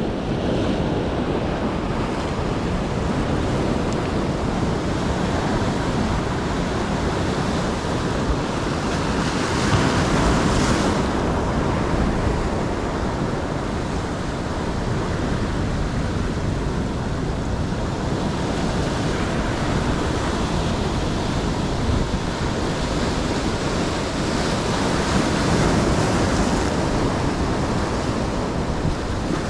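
Ocean surf breaking and washing up the beach, with wind buffeting the microphone. Louder waves break about ten seconds in and again near the end.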